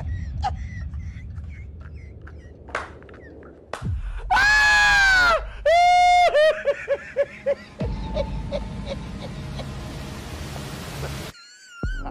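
A woman screams twice in fright, loud and drawn out, the second scream followed by quickly fading repeats like an echo, over steady street noise.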